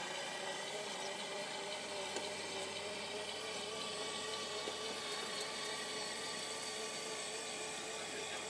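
A small motor running steadily at one pitch, a hum with a higher whine above it.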